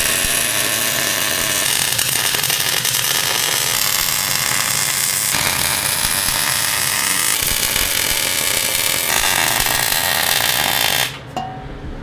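MIG welder arc crackling and sizzling steadily while welding the mini bike's steel frame, its texture shifting a few times between stretches of welding. It stops abruptly about a second before the end.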